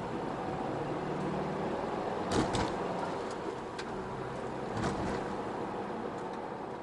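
Steady road and engine noise inside a moving car's cabin. Sharp knocks come in two pairs, about two and a half and five seconds in, as the tyres cross road joints at a bridge.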